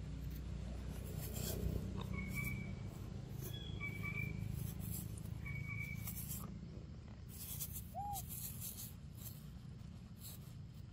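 Outdoor ambience: a steady low rumble with scattered rustling, scraping noises, three short high chirps about two seconds apart in the first half, and a brief rising-then-falling call about eight seconds in.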